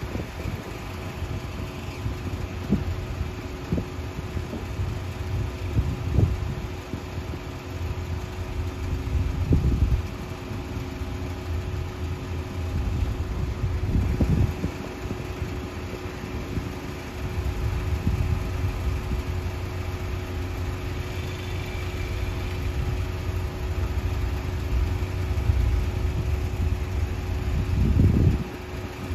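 Steady engine drone of a lake freighter passing close by: a constant hum with a few fixed tones. Wind buffets the microphone in low rumbling gusts, the loudest one near the end.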